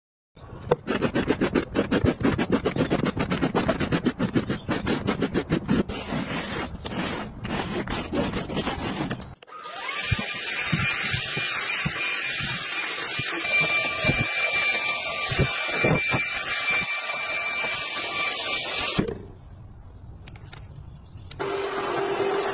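Cordless stick vacuum cleaner running steadily over a tiled floor with a high motor whine, lasting about nine seconds in the middle. Before it comes a dense run of fast clicking and rattling. Near the end a robot vacuum starts with a lower steady hum.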